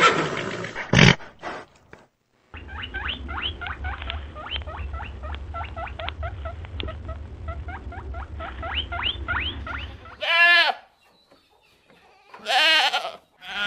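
A horse's whinny trails off in the first second. A long run of quick rising chirps over a low rumble follows. Near the end a goat bleats twice in a wavering voice.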